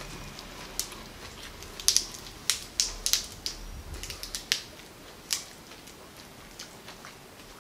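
Raw Agati (Sesbania grandiflora) flowers being pulled apart by hand, giving a run of crisp snaps and crackles that thin out and grow fainter after about five seconds.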